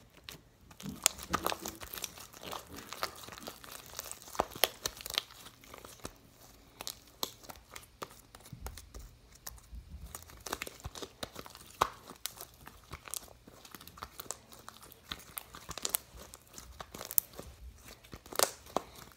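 Homemade slime being kneaded and stretched by hand, with irregular sticky clicks and tearing crackles as it pulls apart. The slime is still coming together.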